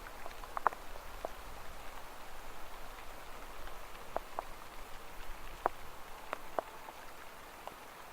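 Summer rain falling: a soft steady patter with single raindrops landing close by as irregular, sharp drips, a few at a time.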